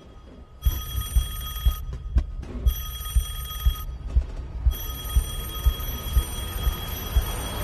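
Landline telephone ringing in repeated rings of about a second each, the last held for several seconds. Underneath are low thumps, about two a second.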